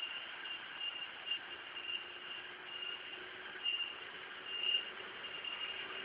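Insects trilling steadily at one high pitch in a forest chorus, swelling louder now and then, loudest twice in the second half, over a faint even rush of the rocky river.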